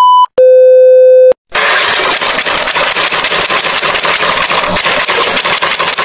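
A high electronic beep ending, then a lower electronic beep about a second long, followed by a loud hiss of static noise like an untuned television, which cuts off abruptly.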